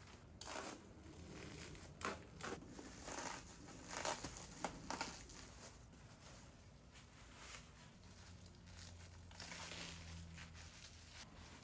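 Plastic packaging wrap crinkling and rustling in irregular spurts as packed parts are handled and unwrapped, with a few soft knocks.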